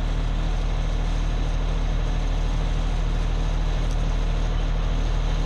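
Fire truck engine running steadily at idle, a constant low hum with no change in speed.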